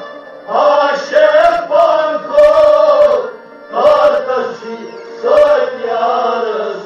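A man singing a Kashmiri devotional kalam in three long, drawn-out phrases over a steady instrumental drone that continues between them.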